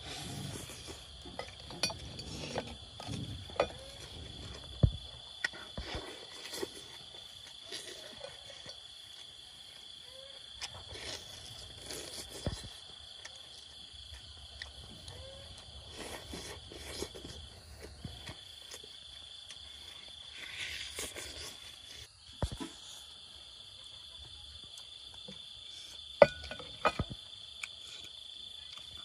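Close-up eating sounds of grilled honeycomb with bee larvae: chewing and crunching, with scattered sharp clicks and taps of handling the clay dishes. Under it, a steady high trill of crickets, broken briefly twice in the second half.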